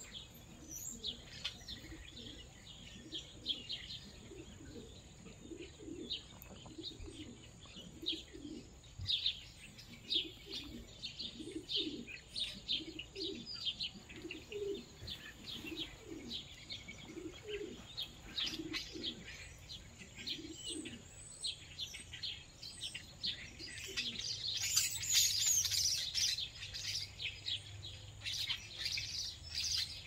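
Many small backyard birds chirping in quick, overlapping short calls, busiest a few seconds before the end, with a run of low cooing notes from pigeons or doves through the middle.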